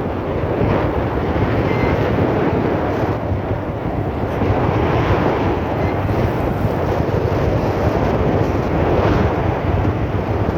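Strong wind buffeting the microphone over the steady rush of the sea around a boat.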